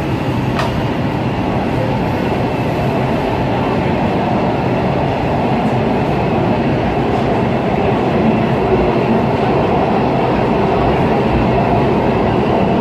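Breda A650 subway car running through a tunnel, heard from inside the car: a steady wheel-on-rail rumble and roar that grows slightly louder about midway. There is a brief click about half a second in.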